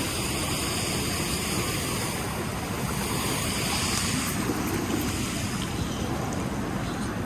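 Steady rushing of river water, mixed with wind buffeting the microphone.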